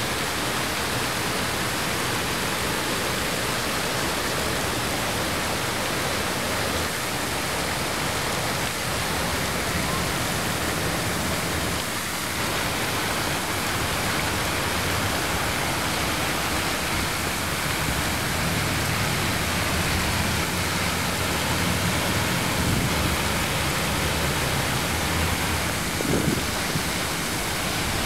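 Fountain water splashing down in a steady, even rush.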